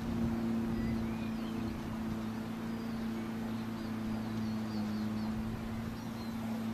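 A steady low hum made of several pitches, with small songbirds chirping over it in short, quick rising and falling notes.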